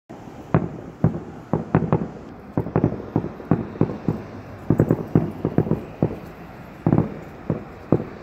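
Aerial fireworks bursting: an irregular series of sharp bangs and pops, often in quick clusters of two or three, about two dozen in all.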